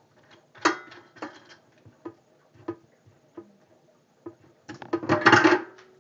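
Handling noise from aquarium tubing and a DIY brush being worked over a stainless steel sink: scattered light clicks and knocks, then a louder cluster of clatter about five seconds in.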